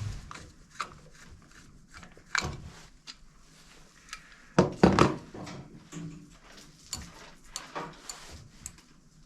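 Scattered clicks and knocks of tools and metal parts being handled while an HEI distributor is taken apart, with two louder knocks in quick succession about halfway through.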